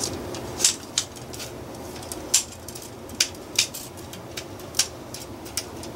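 Irregular, short scratchy clicks of fingers handling and twisting the repaired tip of a fishing rod and its small tip guide.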